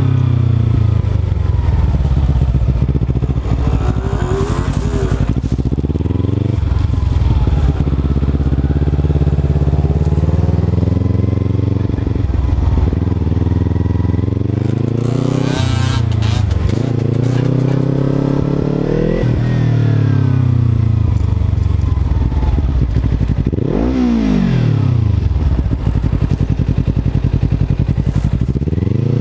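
Kawasaki motorcycle engine running under a helmet camera at low speed, its pitch rising and falling several times as the rider works the throttle and gears. About three quarters of the way through, the revs drop sharply and climb again.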